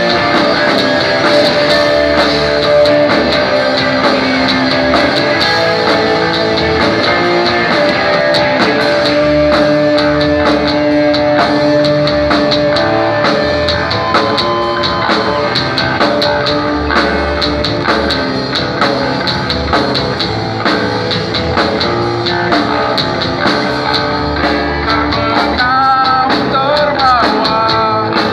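Live grunge band playing a song, with guitars over bass and a steady drum-kit beat.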